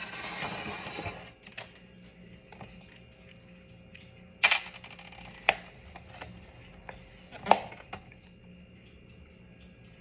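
Syringe, its plastic cap and plastic cups being handled on a metal tray: a rustle at first, then scattered sharp clicks and knocks, the loudest about four and a half and seven and a half seconds in.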